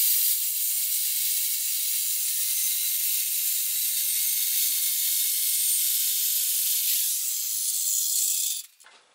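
Handheld electric circular saw running and cutting along a clamped pine board, a steady high hissing noise that stops abruptly near the end.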